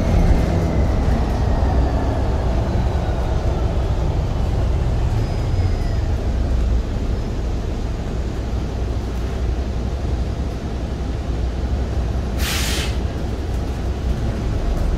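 Steady low rumble of a city transit bus's engine and road noise inside the cabin while it drives, with a faint falling whine over the first few seconds. About twelve seconds in comes one short, sharp hiss of released compressed air from the bus's air system.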